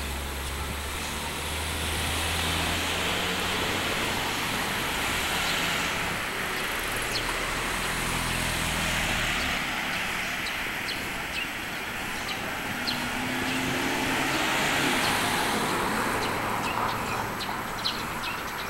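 Cars passing on a street: tyre and engine noise swells twice as vehicles go by, with a low engine hum through the first half.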